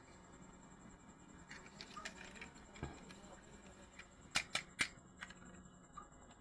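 Light clicks and rustles of hands handling small objects, then three sharp clicks in quick succession about four and a half seconds in.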